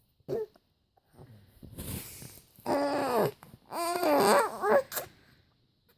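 Non-speech vocal noises, not words: a soft sound shortly after the start, a long arching moan about halfway through, then a string of wavering, warbling calls.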